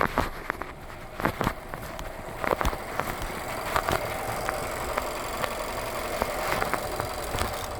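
Car engine idling steadily, with a few sharp clicks and knocks in the first seconds.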